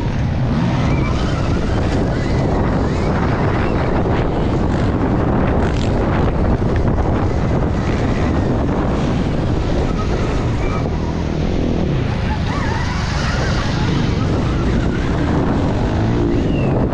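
Onboard sound of a Stark Varg electric motocross bike ridden at race pace on a dirt track: steady wind rushing over the camera microphone and knobby tyres churning loose dirt. Short high whines come through now and then, in place of an engine note.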